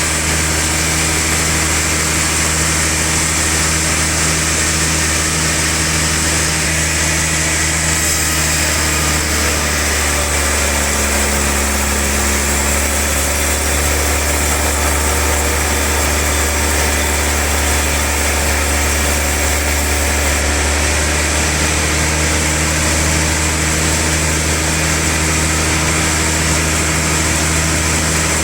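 Sawmill log band saw running steadily. From about 8 to 20 seconds in, its tone shifts, with more hiss and a slight dip in pitch, as if under load during a cut.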